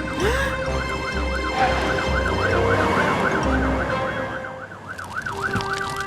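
Cartoon fire truck siren warbling quickly, about three or four rises and falls a second, over the low pulsing rumble of cartoon truck engines brumming and light background music. The rumble stops about four seconds in.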